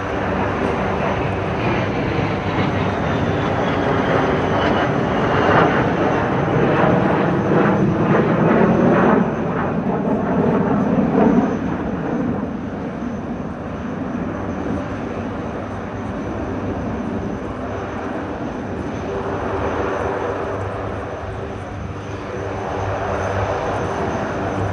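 Aeroplane engine noise from an aircraft flying past in a display, loudest from about five to twelve seconds in, then easing off.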